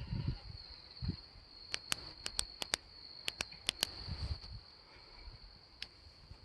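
Night insects singing in a steady high-pitched chorus. About a dozen sharp clicks come in a cluster through the middle, with a few low thumps scattered around them.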